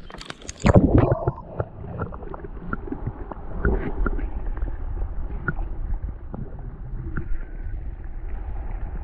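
Water heard through a submerged camera microphone: a splash as it goes under about a second in, then a steady low muffled noise with scattered small knocks and gurgles.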